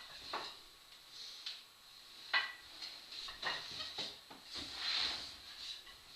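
Wooden rungs of a hanging rope ladder knocking as it is gripped and pulled on, a few sharp knocks among rustling.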